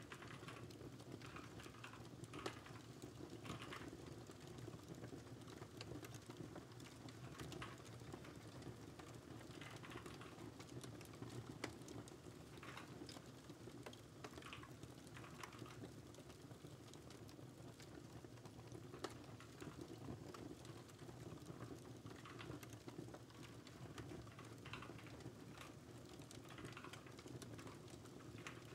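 Faint typing on a computer keyboard in short bursts, with a lull in the middle, over a steady crackling fireplace with now and then a sharp pop.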